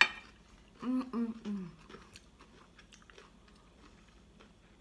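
A sharp clink of cutlery on a plate, then three short closed-mouth "mmm" hums falling in pitch about a second in, with faint chewing and small clicks of cutlery around them.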